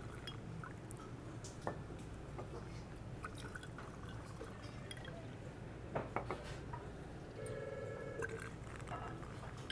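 Spirits poured through bottle pour spouts into a glass shaker, one bottle after another, a faint trickle and splash of liquid with a few light clinks of bottle against glass.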